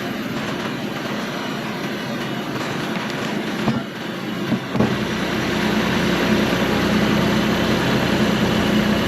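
Cook's AC-36 band sawmill running steadily under power, with a couple of sharp knocks around the middle. It grows louder about five seconds in.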